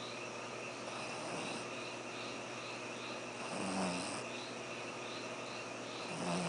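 French bulldog snoring in its sleep: two snores about two and a half seconds apart, the second starting near the end.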